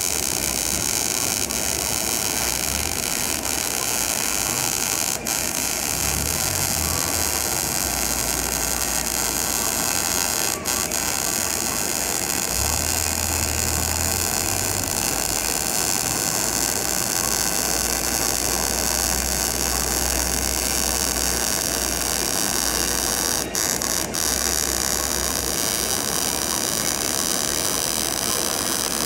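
MIG welding arc burning continuously on sheet steel, a steady hiss, broken off for an instant a few times as the arc stops and restarts.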